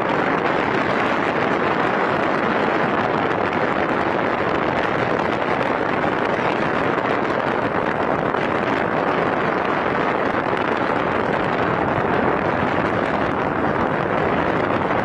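Steady rushing wind noise on the microphone, even throughout with no distinct blasts or impacts.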